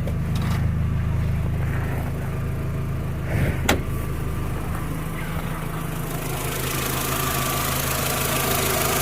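Volkswagen Jetta A4's 2.0-litre four-cylinder engine idling steadily and evenly, with one sharp click a little before the middle and a hiss coming up in the last few seconds. Its new spark plugs and plug wires have cured the misfire on cylinders 1 and 3, and it now runs smoothly.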